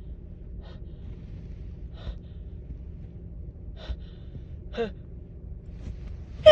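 A woman's pre-sneeze catching breaths: four short, sharp gasping inhales spaced over several seconds, the last one about five seconds in with a little voice in it, building up to a sneeze that breaks out right at the very end.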